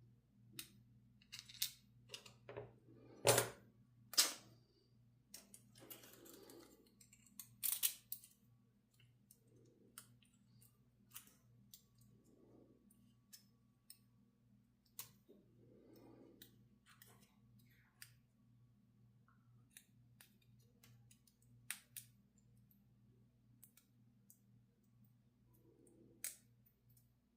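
Small metal clicks and taps of a pin-tumbler lock and its parts being handled and worked on by hand, irregular and sparse, with a few sharper clicks in the first eight seconds. A faint steady hum lies underneath.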